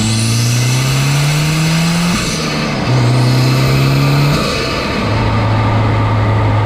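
Mazdaspeed6's turbocharged 2.3-litre four-cylinder accelerating hard through two gears with an aftermarket Cobb intake, the engine note rising then dropping at each upshift, with a rising turbo whistle during each pull. It then runs steadily for the last couple of seconds.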